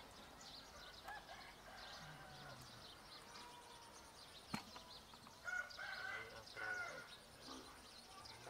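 Small birds chirping, with a chicken calling twice a little past the middle. A single sharp click sounds about halfway through.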